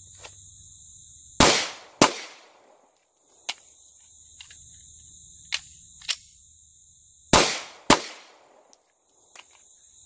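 Handgun fired four times in two quick pairs: two shots about half a second apart, then about five seconds later two more the same way. Fainter single shots sound in between.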